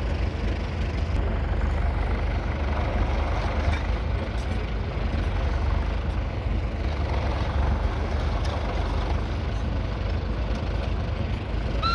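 1938 Fordson Model N's 3.6-litre four-cylinder diesel engine running steadily with a low, even rumble.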